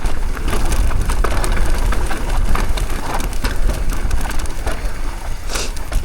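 Downhill mountain bike descending a dry, loose dirt trail over brake bumps: tyres crunching through loose dirt and rock, with a rapid, uneven rattle of knocks and clicks from the bike, over a constant low wind rumble.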